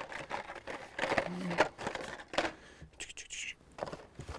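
Carded Hot Wheels cars being handled and pulled out of a cardboard shipping case: plastic blister packs and card backs rustling, scraping and clicking against each other and the box.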